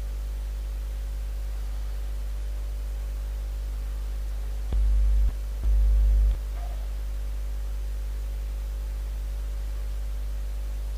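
Steady electrical mains hum with a buzzy row of overtones, from the recording equipment. About five seconds in, the low hum swells louder twice, each time for about half a second.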